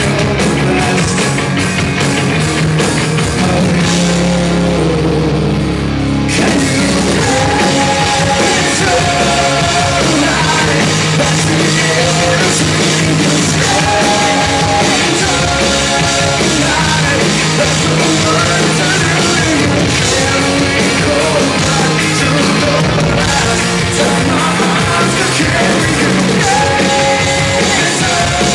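Live rock band playing: a male lead singer over electric guitars, bass and a drum kit. About four seconds in, the cymbals and high end drop away for a couple of seconds, then the full band comes back in.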